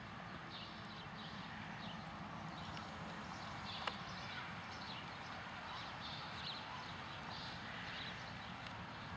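Hoofbeats of a 2009 American Quarter Horse gelding on the ground, coming at about two a second, with one sharp click about four seconds in.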